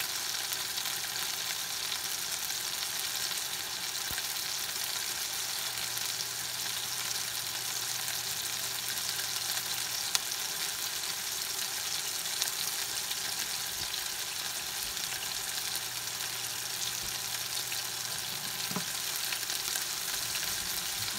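Ground-pork burger patties sizzling steadily as they fry in fat in a skillet, with one light tick about ten seconds in.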